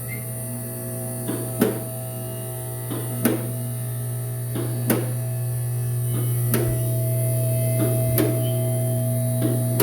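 Sandblaster running: a loud steady hum with a high hiss of blasting air, and a light tick about every second and a half.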